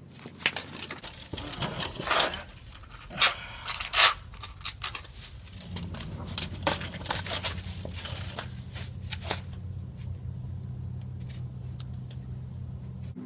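Scraping and rasping of a plastic spreader working body filler, the scrapes coming in irregular strokes, heaviest in the first half. A steady low hum comes in about halfway through.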